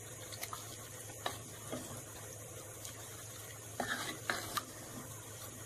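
A wooden spatula stirring chicken gravy in a pot: faint wet scraping with a few light knocks, a little louder about four seconds in.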